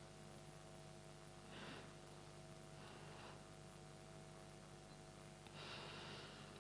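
Near silence: a faint steady hum, with three soft breaths into a handheld microphone, the longest near the end.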